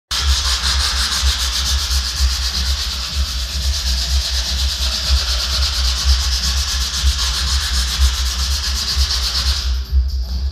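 Sandpaper rubbed by hand over the wooden stem of a skin-on-frame canoe: a steady scratching of quick, even strokes that stops shortly before the end. A low rumble runs underneath.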